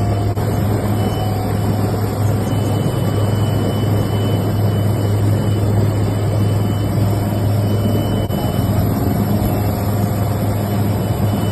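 An engine running steadily, giving a constant low drone with no breaks.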